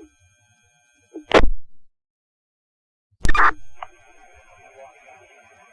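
Two short, sharp static bursts from a Baofeng UV-5R handheld radio scanning fire-department traffic: one about a second in, then another past the middle. These are squelch bursts as the channel keys up, the second opening onto faint radio hiss as the next transmission begins.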